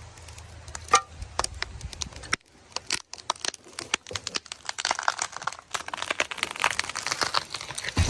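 Many sharp cracks and crackles, thickest in the second half, with a low hum under the first couple of seconds and a heavy thump at the very end.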